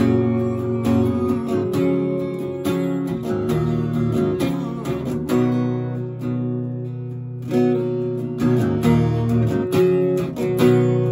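Acoustic guitar strummed in an instrumental passage with no singing. Rhythmic chord strokes, with one chord left to ring for a moment just after the middle before the strumming picks up again.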